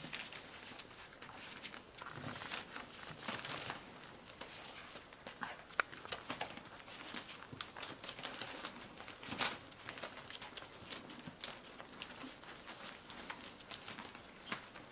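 Newspaper spread on the floor rustling and crinkling under scrabbling paws as animals play-scuffle on it, with irregular sharp taps and scratches; the busiest rustling comes about two to four seconds in and again around nine seconds.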